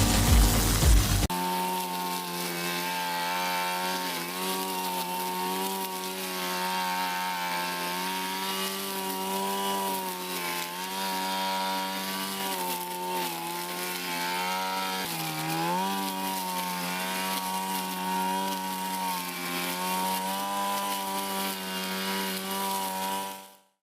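Four-stroke 55 cc backpack brush cutter engine running at high speed, a steady buzzing note that sags and recovers briefly several times, then cuts off suddenly near the end. Music plays for about the first second.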